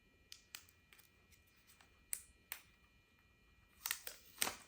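Hands handling a wireless lavalier microphone kit's case and packaging: scattered light clicks and taps, then two louder handling noises near the end.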